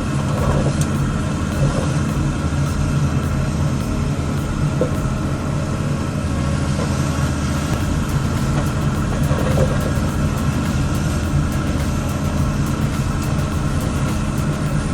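Heavy machine's engine running steadily at an even speed, a constant low hum.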